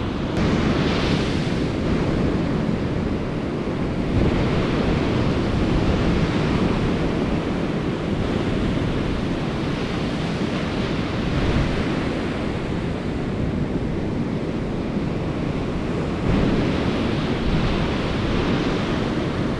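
Surf breaking on a sandy beach, a steady wash that swells every few seconds as waves come in, with wind buffeting the microphone.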